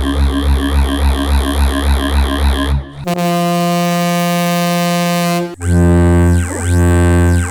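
Ship horn sound effect played in three digitally altered versions back to back: a wobbling, warbling blast for about three seconds, then a steady blast, then a few seconds before the end a low blast with tones sweeping up and down over it.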